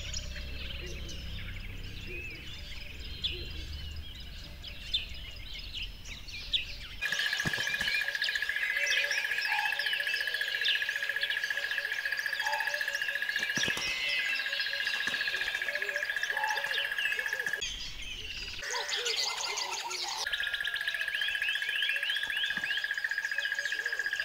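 Many birds chirping and singing in a natural soundscape. About a third of the way in, a steady high trill joins the chirping, dropping out briefly twice.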